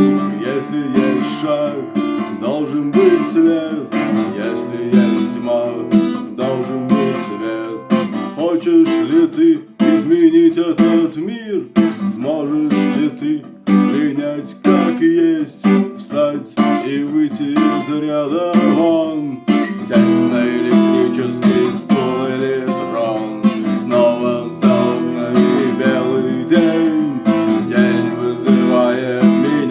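Strummed acoustic guitar playing a song's chords, with a melody that slides and wavers in pitch through the middle.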